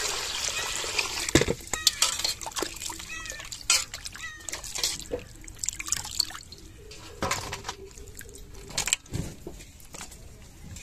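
Water splashing and dripping in a steel bowl as cut eel and fish pieces are rinsed by hand and lifted out. A pour of water tapers off in the first second, then come irregular splashes every second or so.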